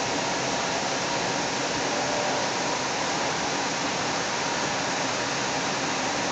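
Steady rushing noise inside a moving light rail car: wheels running on the rails and the car's ventilation, with a faint steady tone.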